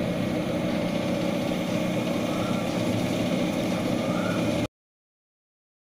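Desktop PC running with its case open: the steady hum and whir of its cooling fans and spinning hard drives, which cuts off suddenly near the end.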